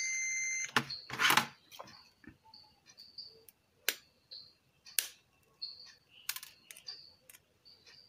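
Digital multimeter's continuity buzzer sounding a steady high beep for the first moment, with the probes across a keypad switch on the car stereo's front-panel board: the switch is shorted. The beep cuts off, followed by a loud clatter about a second in and a few sharp clicks of the probes and board being handled.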